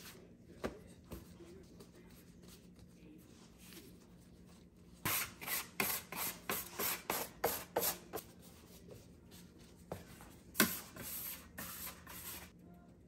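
Baguette dough being rolled and rubbed by gloved hands and a small metal rolling pin on a floured metal sheet. About halfway through comes a run of rubbing strokes, about three a second, then a sharp knock and a shorter run of strokes near the end.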